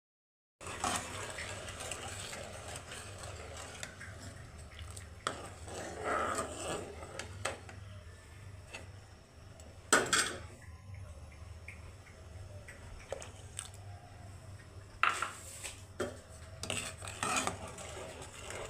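Utensils clinking, knocking and scraping against dishes and bowls, with stirring, over a steady low hum. The loudest clatter comes about ten seconds in.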